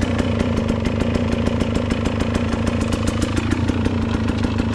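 Dirt bike engine running at a low, steady speed on a trail ride, its exhaust beat a rapid, even pulse.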